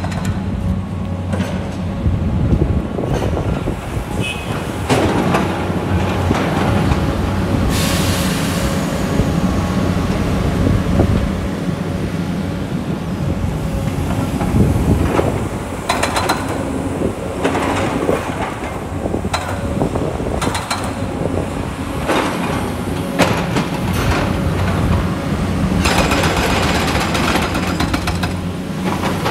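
Excavator diesel engines running with a steady low drone, with repeated irregular knocks and clatter from the machines at work.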